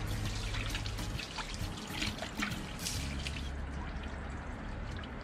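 Water from a garden hose running and splashing over a polished aluminium truck wheel, rinsing off diluted Hi-Trail acid wheel cleaner, with dribbles and drips onto the ground. A low steady hum sits underneath.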